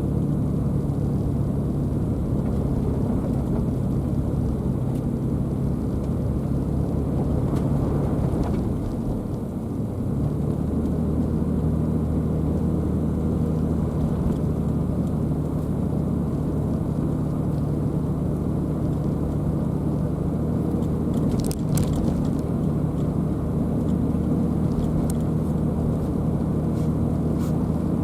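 Car driving on the road: a steady low hum of engine and tyres, whose drone drops and shifts to a new note about ten seconds in. A brief click or knock comes about two-thirds of the way through.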